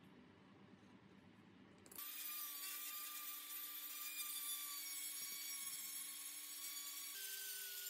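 Quiet for about two seconds, then an electric straight die grinder with a pink grinding stone starts grinding a rusty steel fan blade, making a steady high-pitched whine with a hiss. About five seconds later the whine jumps to a higher pitch.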